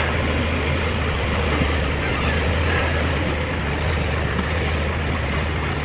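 Diesel engine of a Kobelco SK200 hydraulic excavator running steadily with a deep, even drone.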